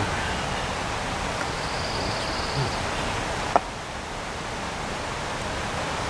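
Steady outdoor background hiss with no clear source. A faint high whistle lasts about a second near two seconds in, and a single sharp click comes about three and a half seconds in, after which the hiss is a little softer.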